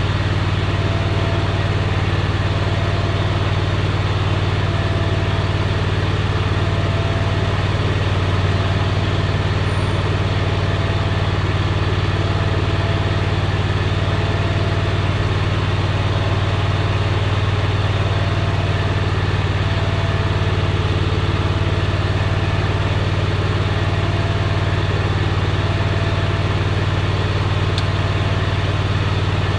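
Hustler zero-turn mower's engine idling steadily while it warms up: a low, even hum that doesn't change.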